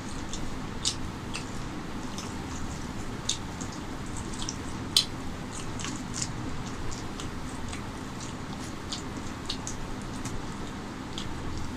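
Close-miked wet eating sounds from a person eating chicken curry by hand: scattered short wet clicks and smacks of mouth and curry-soaked fingers, one louder about five seconds in, over a steady low hum.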